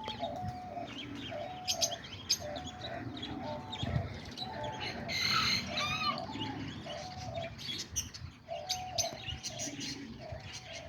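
Mixed cage birds calling: a short, low call repeated over and over, about once or twice a second, with higher chirps and tweets over it.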